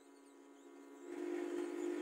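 Hot air rework station blowing on a phone board to lift off the power IC: a steady fan hum with a rush of air that gets louder about a second in.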